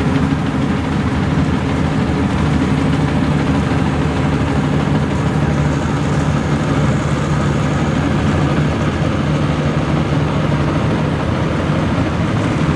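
Maxxi Bimo NDR102L combine harvester running steadily, its engine holding one constant speed with no change in pitch.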